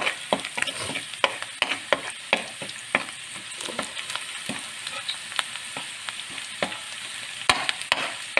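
Sliced onion sizzling in hot oil in a steel wok while a metal spoon stirs it, the spoon clinking and scraping against the pan in irregular knocks. The knocks come thickest in the first few seconds, with another burst of sharp ones near the end.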